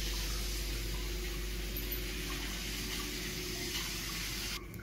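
Rail King battery toy train running on its plastic track, its small electric motor whirring steadily on a single 3.7-volt lithium cell. The sound drops off abruptly just before the end.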